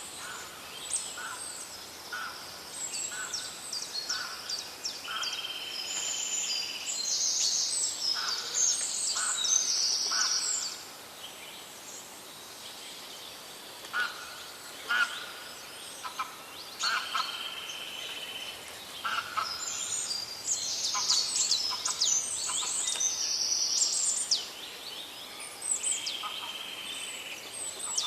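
A chorus of forest songbirds calling and singing over the steady rush of a stream: quick chirps and trills with repeated held whistles. Calls crowd together for the first ten seconds or so, thin out for several seconds, then pick up again.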